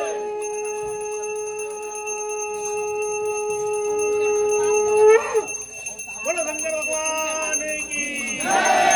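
Bells ringing over a long steady blown-sounding note that is held for about five seconds and rises in pitch as it breaks off, then a second, shorter note and a louder burst near the end.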